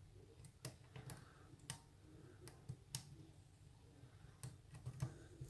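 Faint, irregular small clicks and ticks of a hook pick working the pin tumblers of a US Lock rim cylinder while it is held under tension, about a dozen light clicks spread unevenly.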